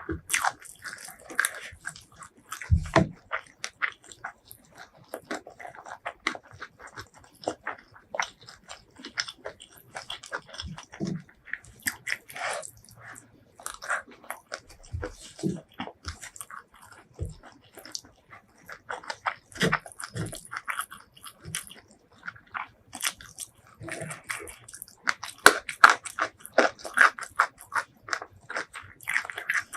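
Close-miked eating: biting into and chewing fried chicken and rice, with irregular crunches and wet mouth clicks.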